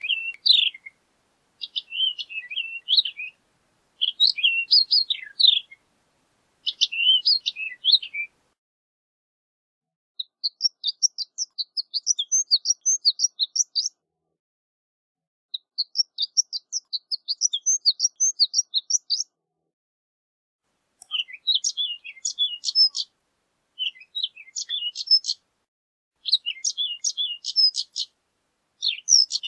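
Horned lark singing: a series of high, tinkling, jumbled phrases separated by short gaps, with two longer runs of rapid twittering notes in the middle.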